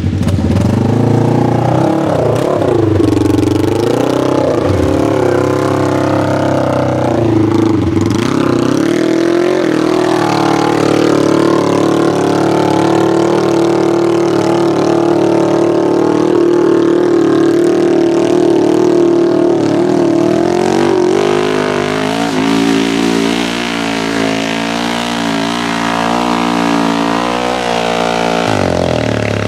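Polaris RZR XP 1000 parallel-twin engine revving under load on a steep dirt hill climb. Its pitch rises and falls through the first ten seconds, then holds high and steady, and settles to a lower, steadier note about twenty-one seconds in.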